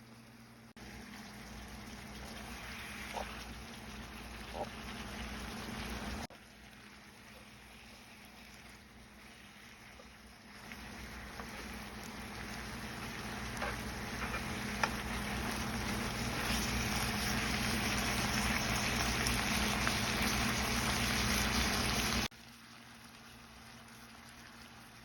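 Gochujang bulgogi sizzling as it fries in a pan. The sizzle grows louder and breaks off at several cuts, with a few sharp pops and a steady low hum underneath.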